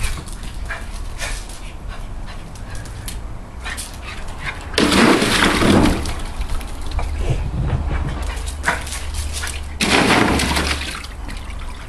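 A small dog barking in play, in two loud bouts about five and ten seconds in, with scattered light clicks between them.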